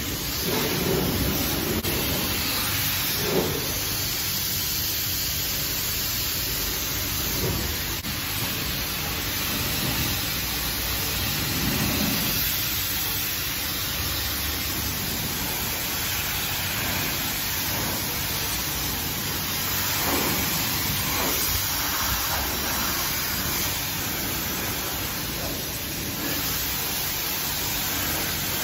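High-pressure spray wand of a self-service car wash jetting water onto a car's body, a steady hiss of spray.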